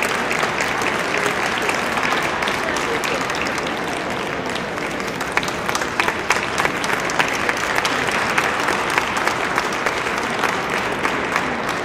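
Ringside audience applauding: a dense patter of hand claps that thins to fewer, sharper claps about halfway through.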